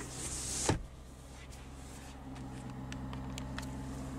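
Ford F-250 Super Duty engine idling steadily, a low even hum heard from inside the cab. Under a second in, a brushing rustle ends in a soft knock, with a few light clicks after.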